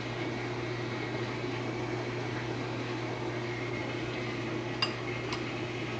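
Steady mechanical hum of a household appliance, with two light clinks half a second apart near the end: a utensil touching the dish.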